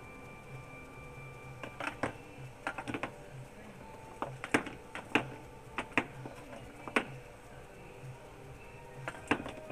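A mouse handling and dragging a hard biscuit across a wooden shelf: irregular sharp clicks and taps, several close together at times, over a faint steady hum with a few held tones.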